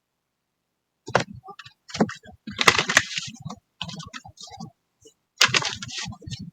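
Tarot cards being handled and shuffled, starting about a second in: irregular runs of quick clicks and papery riffling.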